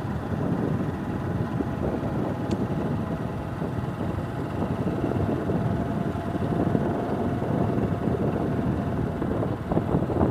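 Vehicle engine and road noise heard while driving, a steady dense rumble with some wind buffeting.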